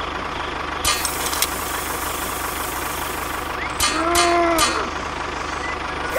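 Tractor engine running steadily at an even pitch, with two sharp clicks about a second in. Around four seconds in a short call arches up and down in pitch, with a few more clicks.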